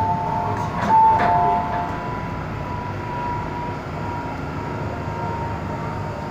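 MTR M-Train stopped at a station with its saloon doors sliding open: a few short electronic chime tones with sharp starts in the first two seconds, then the steady noise of the standing train with a faint, even high whine.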